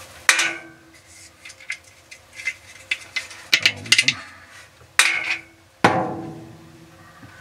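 Hard plastic lint-trap parts clicking and knocking against the dryer's metal drum as they are handled and pulled out. A handful of sharp knocks, each with a short ringing echo from inside the drum, the loudest just after the start and about six seconds in.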